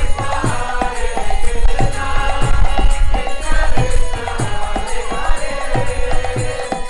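Kirtan accompaniment: an acoustic guitar strumming chords while brass hand cymbals (kartals) clash in a steady beat of about two strokes a second.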